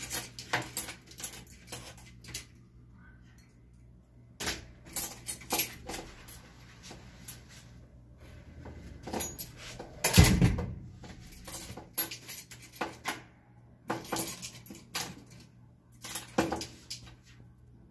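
Metal clicks and rattles of a door's key lock and brass lever handle being worked by a child's hands, with a heavier thump about ten seconds in.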